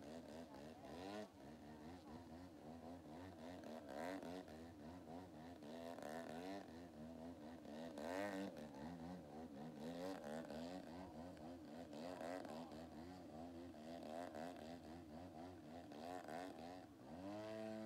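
120cc two-stroke gas engine of a giant-scale aerobatic RC plane holding the model in a hover, its revs rising and falling constantly as the throttle is worked. Near the end it revs up sharply and holds the higher pitch.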